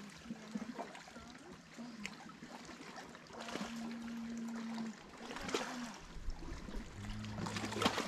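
Small waves of a calm sea lapping and trickling among shoreline rocks, with many small irregular splashes and clicks. A faint steady low hum comes in about halfway through and again near the end.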